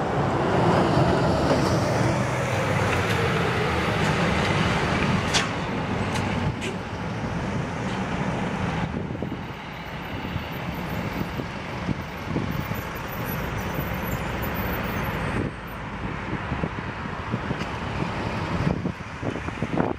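Street traffic noise with a heritage electric tram running along its street track. A whine falls in pitch over the first few seconds, and the level drops abruptly a few times.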